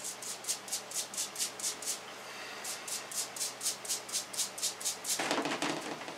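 A stiff brush scrubbing an engine part in a plastic tub, in quick back-and-forth strokes about four to five a second, with a short pause around two seconds in. Near the end comes a louder, fuller rub.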